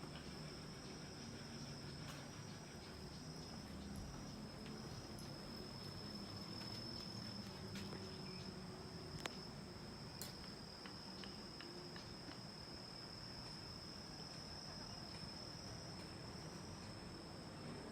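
Faint, steady insect trilling: one unbroken high-pitched note, over a low background rumble, with a few small clicks about nine and ten seconds in.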